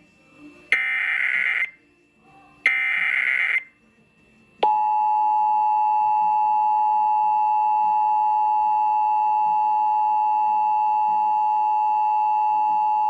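Emergency Alert System SAME header: two bursts of digital data tones, each about a second long. About four and a half seconds in comes the EAS two-tone attention signal, a steady dual tone that starts and stops abruptly and lasts about eight and a half seconds. Together they open a Required Monthly Test.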